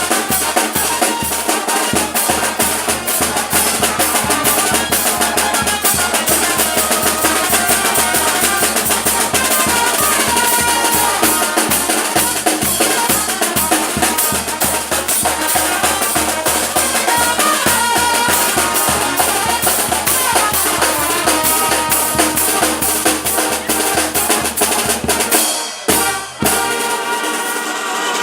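Loud live music from a band with drums and brass, snare and bass drum keeping a fast, steady beat, with a short break near the end.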